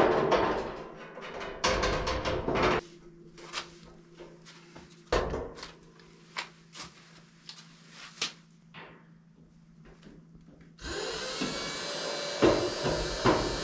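Metal front cover of a propane wall heater being handled, fitted back on and fastened with a screwdriver: rubbing, clattering, then scattered clicks and taps, with a low steady hum behind. About eleven seconds in, a steady hiss sets in and holds.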